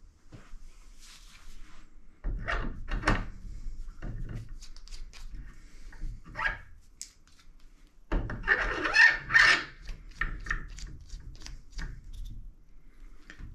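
Handling noise as a telescope mount counterweight is picked up and fitted onto the steel counterweight shaft: a few sharp knocks about two seconds in, small clicks, and a louder run of knocks and scraping around eight seconds in.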